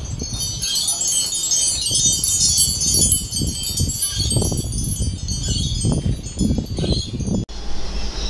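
Wind chimes tinkling in a dense, continuous jangle of high ringing notes over a low, uneven rumble, stopping abruptly near the end.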